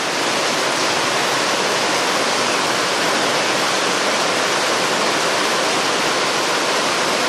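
Heavy rain pouring down steadily, a loud, even rushing hiss.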